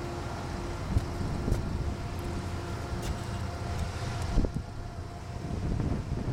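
Wind buffeting the microphone as a low, uneven rumble under a faint steady whine, with three short knocks.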